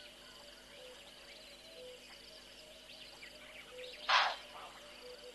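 Dawn bird chorus of mixed chirps, trills and soft low whistles. About four seconds in comes one short, harsh rasping call, the loudest sound, with a fainter echo of it just after.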